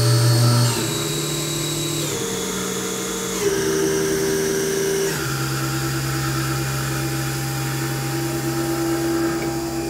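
The 8000 rpm spindle of a Hardinge VMC-1000II vertical machining center running, with a steady whine whose pitch shifts in steps every second or two as the spindle speed changes.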